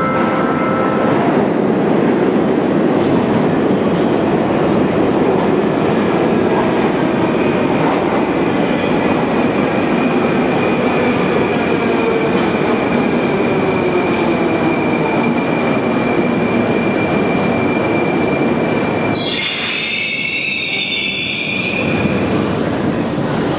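A Moscow metro train pulling into the station: a loud, continuous rumble of wheels and motors, with a steady high whine joining as it slows. It ends in a brief high squeal near the end as the train comes to a stop.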